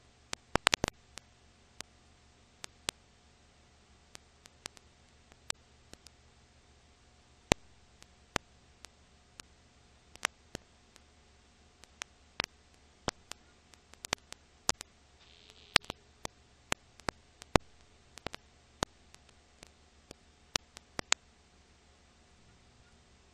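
Crackle of an old recording transfer: irregular sharp clicks and pops, a few a second, over a faint steady hiss and a thin hum, with no other sound.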